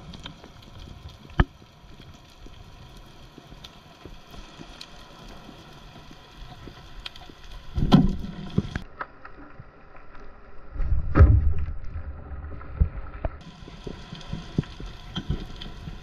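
Underwater coral-reef ambience picked up by a camera in its housing: a steady fine crackle of tiny clicks, typical of snapping shrimp, with one sharp click about a second and a half in. Twice, at about 8 s and 11 s, low rushes of water swell up as the freediver moves.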